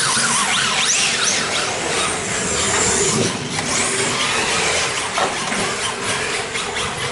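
Electric radio-controlled cars' motors whining, pitch rising and falling repeatedly with the throttle, over a steady rushing noise.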